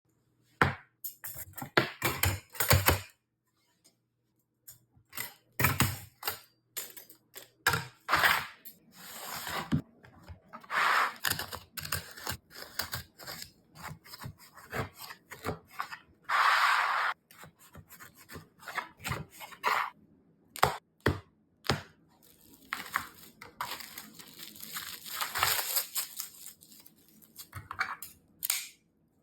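Phone packaging being handled and opened by hand: irregular rubbing, tearing and clicking, with a longer tearing rustle a little past halfway.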